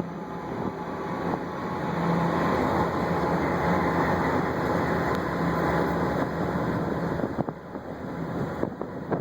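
A coal train passing, a loud, steady rolling noise with a constant low hum, growing quieter near the end.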